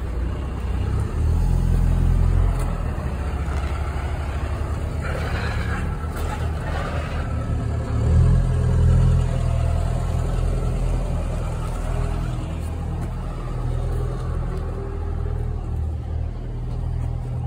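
An engine running steadily close by: a low, even drone that swells slightly about eight seconds in.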